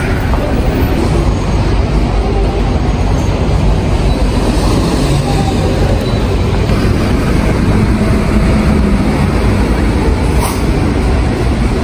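City buses and traffic at a bus terminal: a steady, loud, low noise of engines and road traffic with no breaks.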